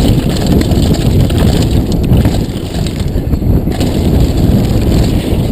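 Wind rushing over a helmet-mounted GoPro microphone and the steady rumble and rattle of a downhill mountain bike running fast over rough trail.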